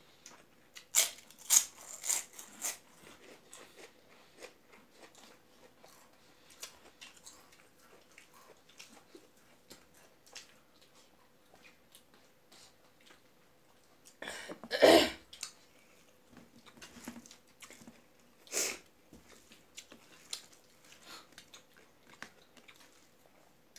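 Close-up eating sounds: fried papad crunching in a few sharp bites in the first three seconds, then soft chewing and small clicks of fingers mixing rice on a steel plate. A loud, brief noise comes about 15 seconds in and a sharper one near 19 seconds.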